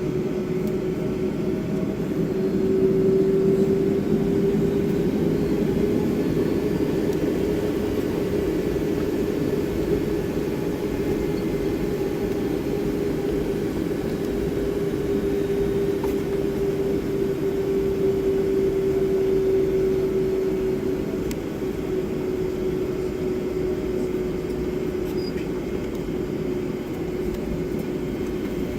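Boeing 757-300 jet engines heard from inside the passenger cabin, running steadily with a constant hum and one held tone over a low rumble.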